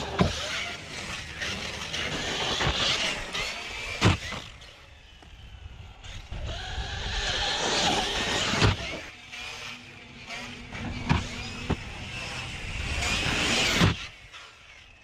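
Traxxas Sledge 6S RC monster truck's brushless electric motor whining as it revs up and down, with several sharp knocks as the truck hits the ground off jumps.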